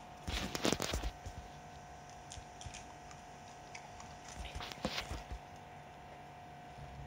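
Dogs being hand-fed treats: two clusters of short clicks and rustles, about a second in and again around five seconds, over a faint steady hum.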